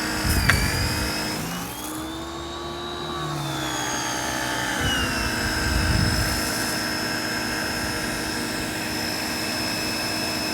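Ryobi 1600 PSI electric pressure washer running and spraying, its motor-and-pump whine sagging and rising in pitch over the first few seconds and then holding steady. A sharp click comes about half a second in.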